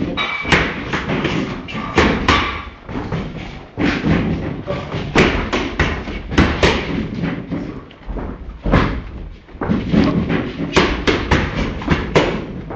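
Boxing gloves striking focus mitts: sharp, irregular smacks, often in quick runs of several punches.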